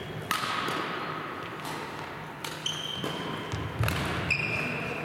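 Badminton rally on a wooden sports-hall court: four sharp racket strikes on the shuttlecock, with short squeaks of shoes on the floor after them, echoing in the hall.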